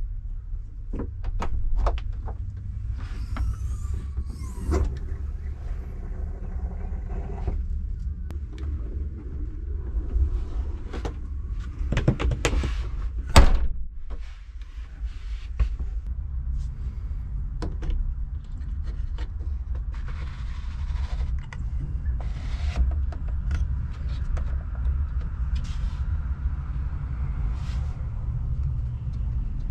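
Clicks, knocks and scrapes as a camper van's window fittings are worked by hand: latches and handles snapping and window panes and covers sliding in their tracks, with a sharp knock about halfway through. A steady low rumble runs underneath.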